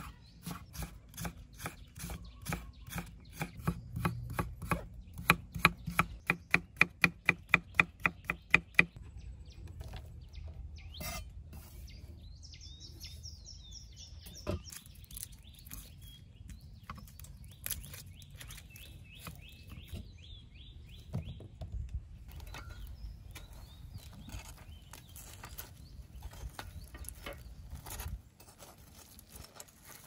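Knife chopping on a cutting board in a steady rhythm, about three strokes a second, getting louder then stopping about nine seconds in. Afterwards birds trill twice in the background, with a few scattered knocks.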